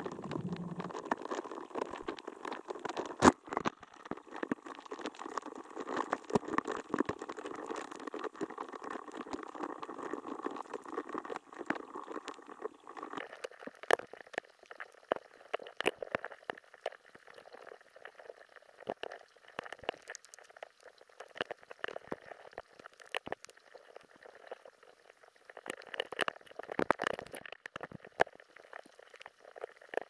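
Underwater sound inside a submerged fish trap where a swarm of Chinese minnows is feeding, played sped up: a steady watery hiss with many small clicks. About halfway through the playback speeds up further and the sound turns higher and thinner.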